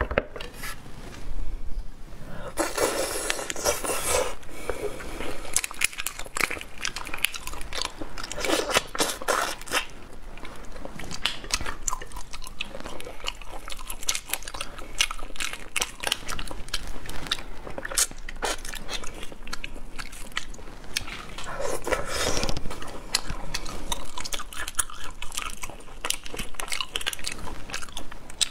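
Close-miked shells of red shrimp cracking and crackling as they are pulled apart and peeled by hand, mixed with biting and wet chewing. There is a steady run of small sharp crackles and clicks, with busier patches a few times.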